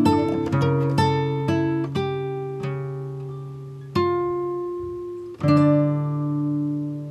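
Background music of plucked guitar: a slow melody of single notes about every half second, easing into a few long ringing notes and chords in the second half.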